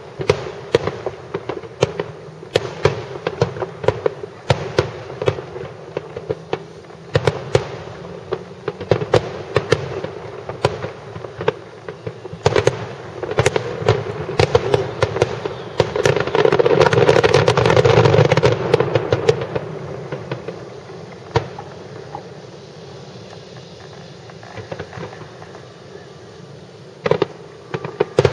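Aerial firework shells bursting in quick succession, with sharp bangs and crackle. About halfway through they merge into a dense barrage with a continuous rumble, then thin out to a few scattered bangs toward the end.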